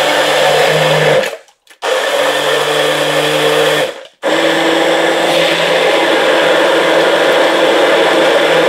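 Electric hand (stick) blender running in a tall jug, puréeing a thick smoothie of steamed banana peel, banana, fruit and yogurt. It runs in three goes, with short stops about a second in and about four seconds in, then runs steadily.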